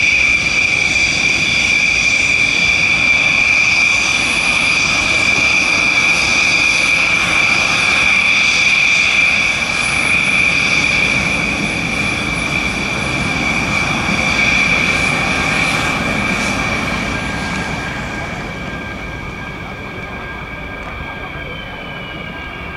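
Fighter jet engine whine: a steady high-pitched tone with overtones over a rush of engine noise, dropping away about three-quarters of the way through.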